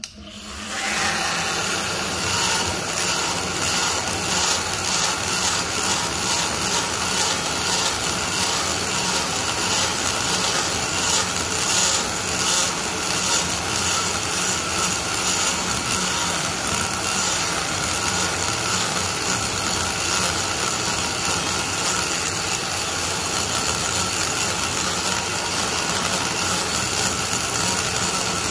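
Cable-drive die grinder spinning a single-cut burr, cutting into the aluminium port bowl of a Toyota 2JZ-VVTi cylinder head. It starts up right at the beginning and runs steadily, the cut pulsing in a regular rhythm as the burr is pressed in and eased off.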